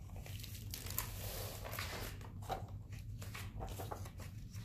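Paper rustling and crinkling as a hardcover picture book is opened and its pages turned by hand, with a few small taps, over a steady low hum.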